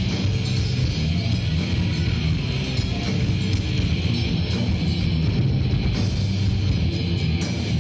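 Live rock band playing loud, with electric guitars, bass guitar and drums.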